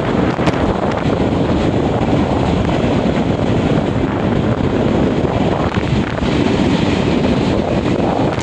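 A train running past on the rails: a steady, loud rumble, with wind buffeting the microphone.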